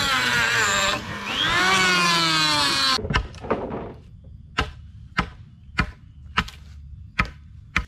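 Electric hand planer whining as it cuts a wooden beam, its pitch sagging as the blade bites and rising again, stopping abruptly. Then a hatchet chops the end of a wooden stake to a point, about eight sharp chops roughly every half second.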